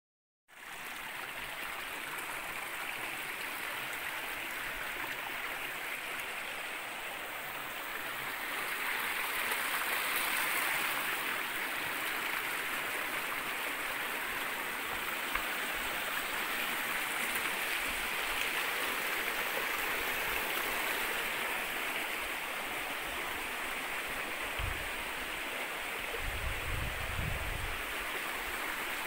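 Steady rushing of a stream's flowing water, a little louder from about eight seconds in, with a couple of low thumps near the end.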